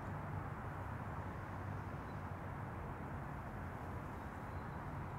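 Steady background noise: an even low hum and hiss that does not change, with no distinct events.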